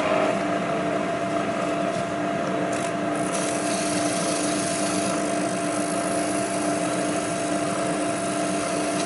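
Precision Matthews PM-935TV variable-speed knee mill spindle running steadily at about 800 RPM with a half-inch end mill: an even motor and drive whir with a couple of held tones.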